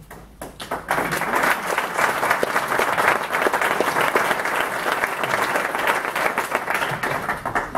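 Audience applauding, a dense patter of many hands clapping that starts about half a second in and thins out near the end.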